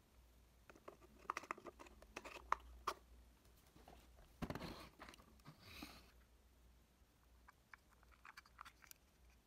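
Faint clicks and taps of small miniature props being handled and set in place, with a brief rustling scrape about four and a half seconds in.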